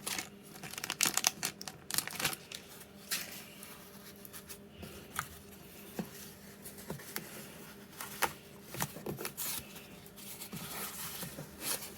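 Packaging being handled: crinkling and rustling with scattered short clicks and taps, coming and going irregularly.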